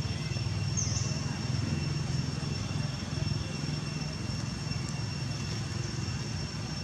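A low, steady motor-vehicle engine hum that swells slightly and then eases, with a thin, steady high-pitched whine running through it.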